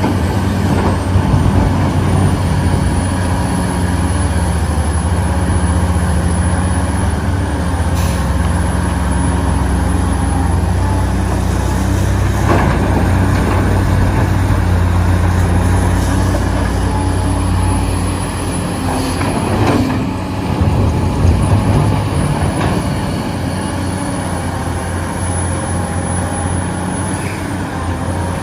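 Radio-controlled excavator's electric motor and hydraulic pump running steadily under load, a low hum with a high whine that rises and falls in pitch as the controls are worked.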